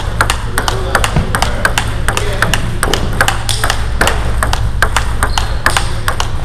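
A table tennis rally: the plastic ball clicks off the rackets' rubbers and the table in quick succession. Several clicks a second sound throughout, with rallies at other tables in the same gym adding more.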